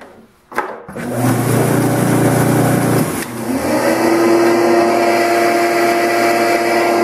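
A salvaged flat-top shop vacuum's blower motor, built into the sander cabinet, is switched on with a click and runs loudly. Its whine rises about three seconds in and then holds at one steady pitch; its exhaust goes through a styrofoam-lined muffler in the cabinet door.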